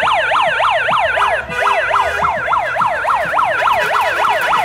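Loud siren in a fast yelp, its pitch sweeping up and down about four or five times a second. It breaks off briefly about a second and a half in, resumes, and cuts off abruptly at the end.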